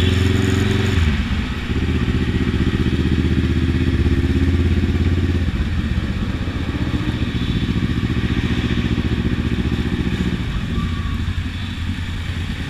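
Kawasaki Ninja motorcycle engine running under way in traffic, heard from the rider's position. Its steady note shifts about a second in and again around five and ten seconds in.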